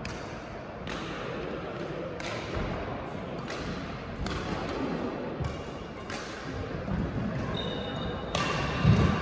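Badminton rackets hitting a shuttlecock during a rally: sharp hits at irregular intervals of about one to two seconds, each ringing out in the echo of a large sports hall. Short high squeaks, typical of court shoes on the floor, come near the end.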